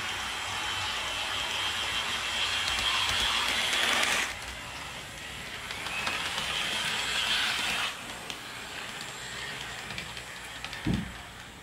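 HO-scale model train (Rapido GO Transit F59PH locomotive with bilevel coaches) running on track, with a steady whine and rolling rattle. It is loudest at the start, drops sharply about four seconds in, swells again and drops off near eight seconds. A single soft thump comes near the end.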